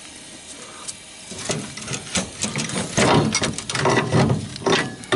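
Metal clanking and rattling in uneven bursts as a cut-off steering gearbox and its mount are worked loose from a car's frame rail.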